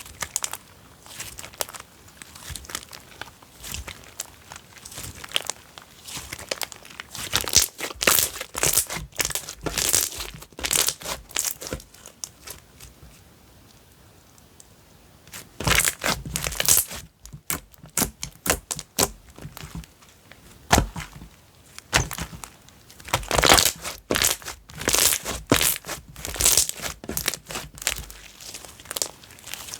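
Slime being squished, pressed and stretched by hand, giving bursts of crackling clicks and pops, with a quieter spell about halfway through.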